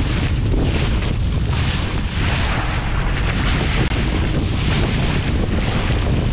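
Wind buffeting the microphone, with water rushing and splashing past a small boat under way on choppy sea.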